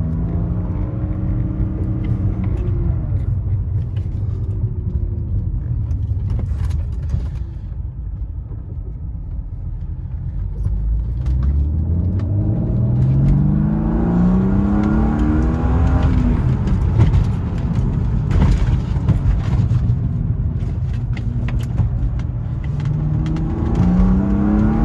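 BMW E36 M3's S52 straight-six engine pulling hard under acceleration, its pitch climbing and dropping back at each gear change several times over. It runs cleanly now that the bad cam sensor behind its hot no-start has been replaced.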